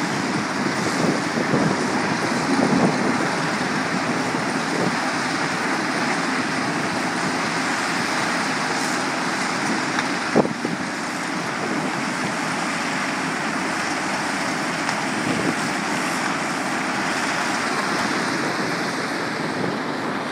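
Steady noise of a tracked mobile rock crusher and two Cat hydraulic excavators working shot rock, with rock clattering, and a single sharp bang about halfway through.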